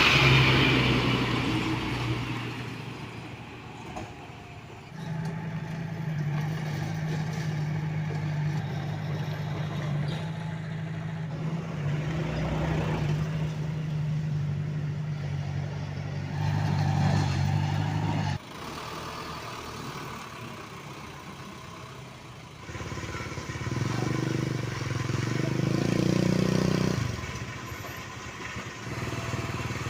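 Diesel engines of a bulldozer and dump trucks working: a steady engine drone that stops suddenly about 18 seconds in, then an engine revving up and rising in pitch a few seconds later.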